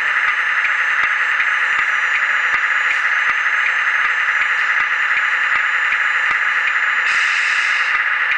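Steady, even hiss, with faint high whining tones above it and a brief brighter burst of high hiss about seven seconds in.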